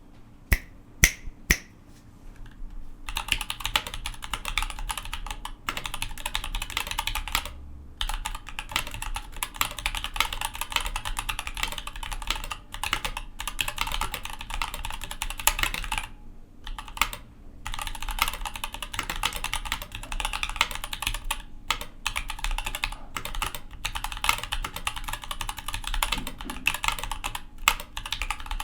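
Typing on a custom mechanical keyboard with Zealios V2 tactile switches and GMK keycaps. A few single key strikes come first, then steady, fast typing from about three seconds in, broken by a few brief pauses.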